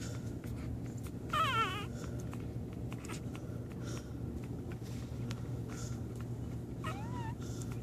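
Newborn American pit bull terrier puppies whimpering while nursing: one wavering squeal that falls in pitch about a second and a half in, and a shorter squeak near the end. A steady low hum lies beneath.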